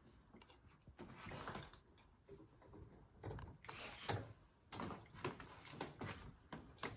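Faint scattered clicks, taps and scrapes of a small screwdriver, a screw and a light switch being handled while someone tries to line the mounting screw up with its hole in the switch box.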